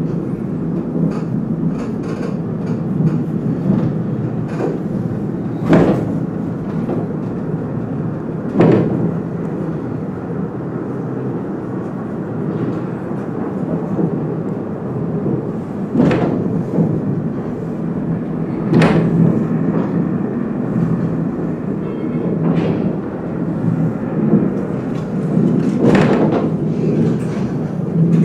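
Bridgnorth Cliff Railway funicular car running down its incline, heard from inside the car: a steady low rumble with a sharp clunk every few seconds, about five in all.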